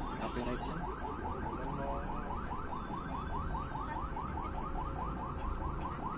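Electronic alarm chirping fast and steadily, about five short rising chirps a second, over the low rumble of a bus engine and road noise heard from inside the cabin.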